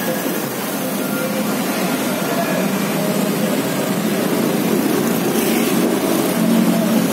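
Street traffic of cars and motorbikes driving past, a steady engine and tyre roar that swells briefly near the end as a motorbike passes close by.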